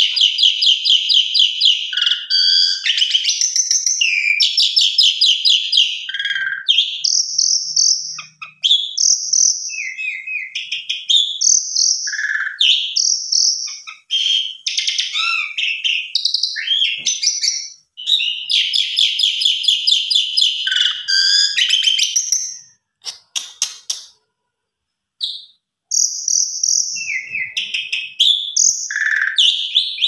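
Caged pied starling (jalak suren) singing a long, varied song of rapid rattling trills, chattering and clear whistled notes, packed with mimicked phrases ('full isian'). It pauses briefly about 24 seconds in.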